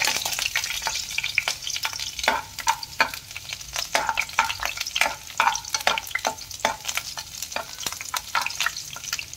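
Finely chopped garlic sizzling in hot oil in a kadhai, stirred with a spatula that scrapes the pan in quick, irregular strokes.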